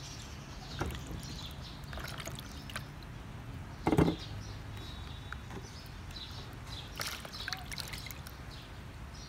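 Hands splashing and sloshing water in a plastic basin while rinsing peeled green mangoes, with small trickles and drips. About four seconds in, a single dull thud as a mango is set down in a stainless steel bowl.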